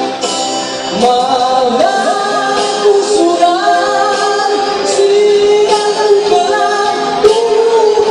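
A man singing into a handheld microphone over loud backing music, his voice coming in strongly about a second in.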